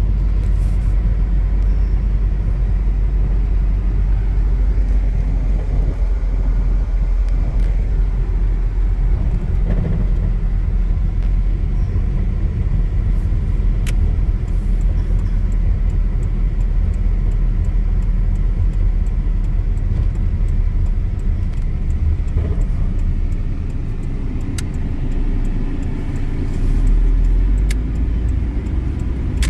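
Cab interior of a 2000 Nissan Frontier XE on the move: a steady low rumble of its four-cylinder engine and road noise, with a few faint clicks.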